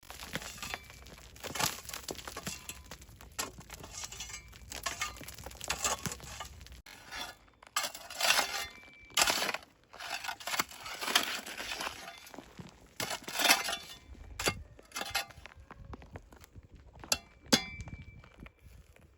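Kitchenware being handled: irregular clinks and knocks with rustling, louder bunches of clatter about halfway through.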